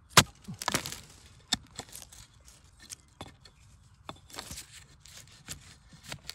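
A large knife chopping at the base of a bamboo shoot in dry leaf litter: sharp knocks of the blade, the loudest just after the start and then lighter ones, with crackling of dry bamboo leaves in between.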